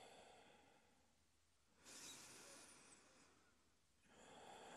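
Near silence: room tone, with one faint breath about two seconds in that lasts about a second and a half.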